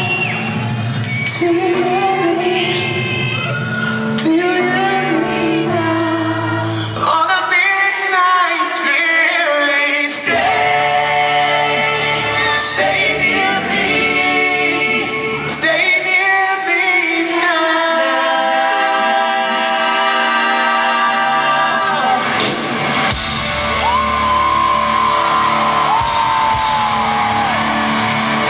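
Rock band playing live, with sung vocals over guitars and drums, heard from the audience in a large hall.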